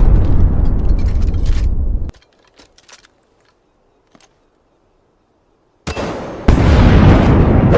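Loud booming, rumbling blasts like explosions: the first cuts off suddenly about two seconds in, a few seconds of near silence with faint clicks follow, and a second blast starts about six seconds in and swells louder half a second later.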